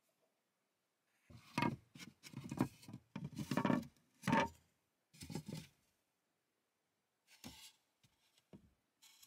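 Loose wooden lid boards of a built-in storage bench being lifted and shifted: a run of knocks and scrapes for about three seconds, a shorter clatter after, then a few lighter knocks near the end.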